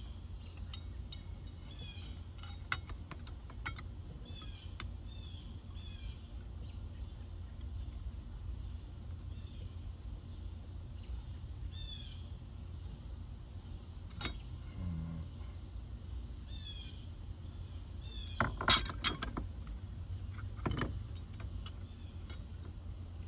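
A steady high insect drone with short repeated chirps over a low rumble. A few sharp clicks and knocks of hand work on the steering column are heard, loudest in a cluster about three-quarters of the way through.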